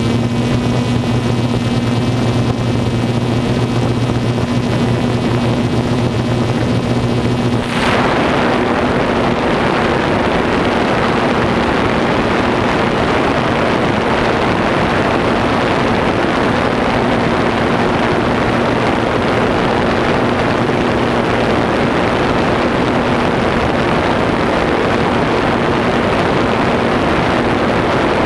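DJI Phantom 2 quadcopter's electric motors and propellers, heard close from the camera it carries: a steady multi-tone whine that about eight seconds in changes abruptly to a steady rushing noise with a fainter hum underneath.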